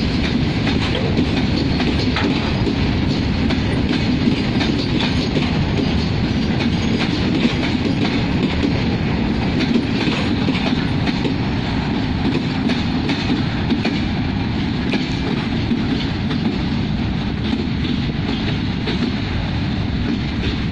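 Loaded freight train of covered goods wagons rolling past at close range: a steady heavy rumble with a running clickety-clack of wheels over the rail joints. The sound eases slightly near the end as the last wagon passes and draws away.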